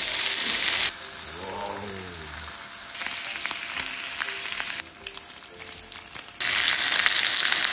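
Large beef short ribs sizzling on an electric grill plate, a steady hiss of fat frying. The sizzle drops quieter about a second in and comes back louder near the end, with a short rising-then-falling pitched sound about two seconds in.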